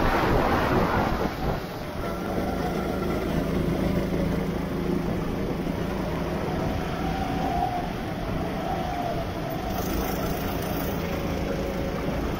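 A go-kart engine running steadily on a wet track. A hiss of wind and water spray is strongest at first and fades after about a second and a half, leaving a steady engine note.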